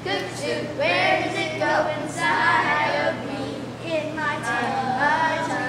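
Children's voices singing and talking together, the pitch wavering and unsteady.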